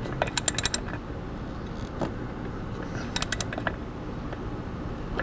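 Metal tools and clutch parts clicking in two quick runs of sharp metallic clicks, one near the start and one about three seconds in, during hands-on clutch assembly.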